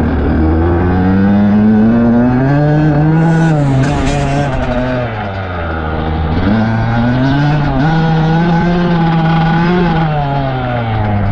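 Dirt bike engine running hard under throttle, its pitch climbing, dropping back about four to five seconds in, then climbing again and holding before easing off near the end.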